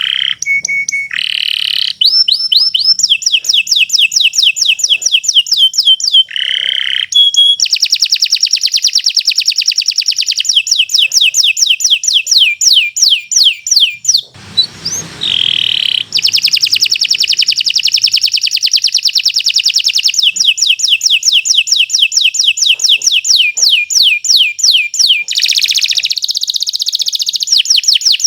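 Domestic canary singing a long, continuous song of rapid trilled rolls, fast runs of repeated notes broken by a few lower warbled notes. There is a short noisy break about halfway through.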